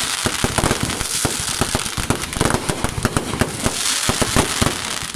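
Fireworks display: a dense, unbroken run of rapid bangs and crackles as aerial shells burst into showers of sparks, over a steady high hiss.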